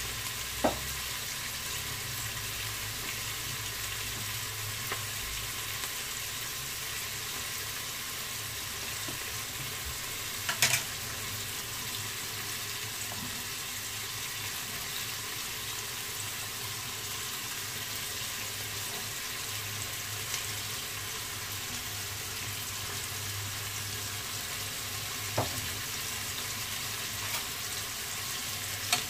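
Sliced onions and green chillies frying in butter in a large aluminium pot: a steady sizzle. A few sharp clicks cut through it, the loudest about ten seconds in.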